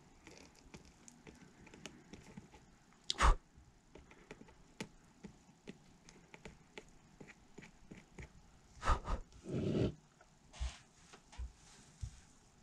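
Scattered small clicks and knocks of soldering work on an 18650 battery pack: the iron and cells being handled and tapped, with one sharp knock about three seconds in and a cluster of knocks and a brief scrape near the end.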